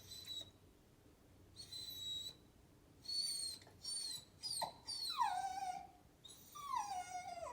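A dog whining while it yawns: several short high squeaky whines, then two longer whines that slide down in pitch, about five seconds in and again near the end.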